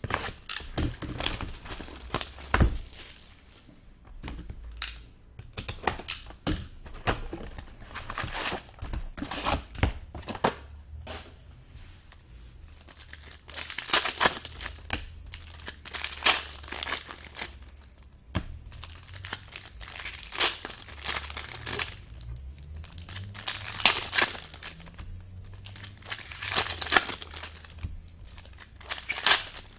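Plastic wrapping being crinkled and torn in irregular bursts as a sealed box of hockey trading cards and its packs are opened.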